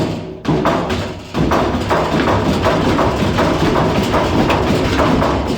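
Admiral washing machine banging hard and repeatedly as its drum spins up with a deliberately unbalanced load: rapid, regular, heavy knocks of the tub against the cabinet. This is the sign of excessive out-of-balance vibration.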